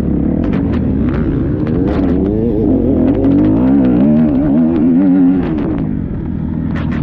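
Enduro motorcycle engine revving up and down in quick swings of the throttle, loudest in the middle and easing off near the end, with scattered sharp clicks and knocks.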